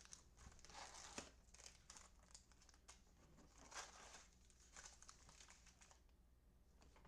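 Faint crinkling and rustling of Topps Heritage trading-card pack wrappers being handled and torn open, in irregular bursts.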